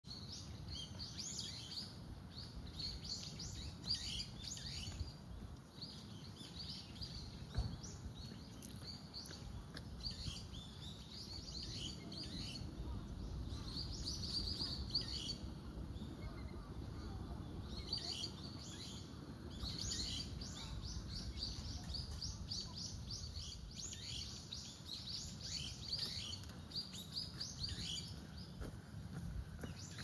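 Birds chirping and twittering in quick clusters of short high notes, repeating throughout, over a steady low background rumble.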